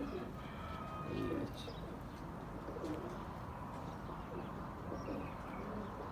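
Domestic pigeons cooing softly, with a few faint higher chirps.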